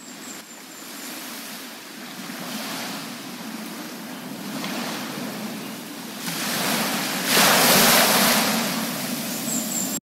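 Sea waves washing onto a beach, a rising and falling hiss of surf that swells to its loudest wash about three-quarters of the way through, then cuts off at the end.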